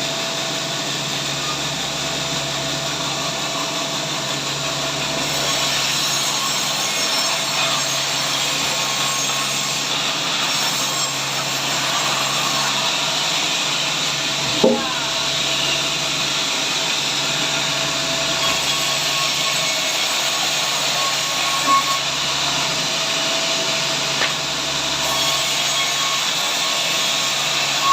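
A sawmill saw cutting steadily through a large log, a continuous machine drone with a steady whine, with one short sharp knock about halfway through.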